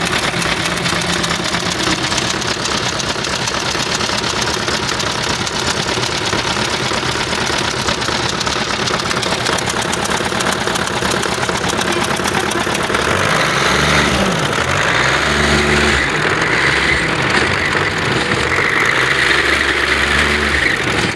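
Engine running with a fast, steady clatter. About thirteen seconds in it gets louder and a deeper engine note joins.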